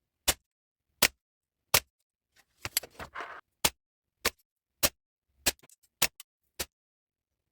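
VFC T91 gas blowback airsoft rifle firing single shots through a chronograph, about ten sharp reports spaced a little over half a second apart, with a short rattle about three seconds in. The gas-charged rifle is shooting fast after its nozzle was modified, around 140–160 on the chronograph.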